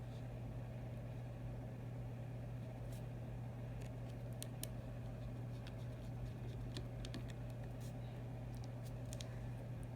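Scattered small, sharp clicks of tools and tiny parts being handled while an iPhone 6 is reassembled, over a steady low hum.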